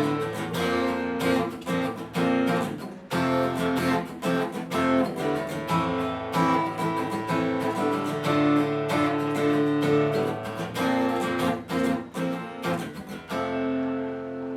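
Copy Taylor 314ce acoustic guitar played solo, chords strummed and picked with many sharp, percussive strokes; about a second before the end a final chord is left ringing and fading.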